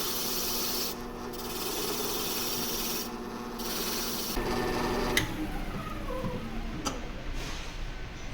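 Freshly cut metal house keys being sanded smooth (deburred) against a powered sanding wheel: a steady rasping hiss with a couple of short breaks as the key is lifted. The sanding stops about four seconds in, followed by a sharp click and a second, softer click.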